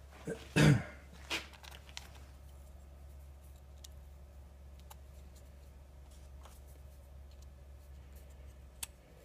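A single loud thump under a second in, then faint scattered clicks of a steel knife blade and pivot pin being handled and fitted into a slipjoint handle scale, over a low steady hum.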